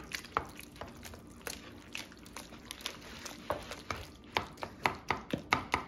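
Wooden spoon mashing and stirring boiled potatoes with milk in a plastic mixing bowl, knocking and scraping against the bowl in irregular taps that come faster and louder in the second half.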